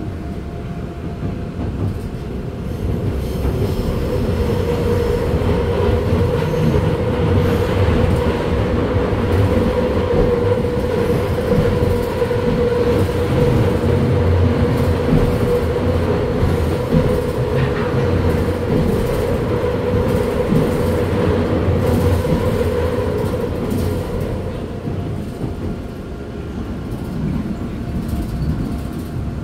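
Seoul Metro Line 2 subway train running on its rails, heard from inside the passenger car: a continuous rumble of wheels and track, with a steady whine over most of it that fades out near the end.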